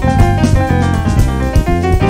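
Background music: pitched instrument notes over a steady drum beat.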